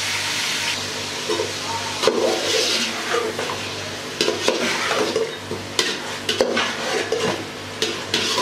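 Raw chicken pieces sizzling in hot oil, just added to the pot to fry. A slotted spatula stirs them, scraping and knocking against the metal pot every second or so.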